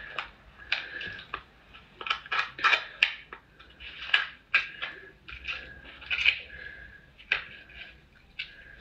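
Crab shell clicking and cracking as meat is scraped and picked out of the top shell with a piece of crab leg: an irregular string of short, sharp clicks.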